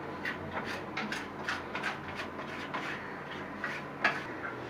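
Irregular light clicks, taps and scraping from plumbing fittings and tools being handled, with one sharper knock about four seconds in.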